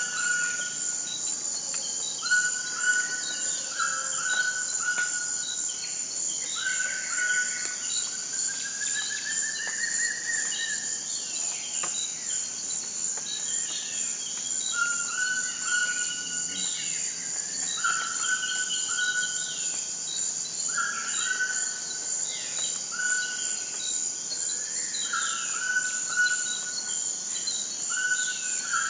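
A steady, high-pitched insect chorus, with birds calling over it in short, repeated notes.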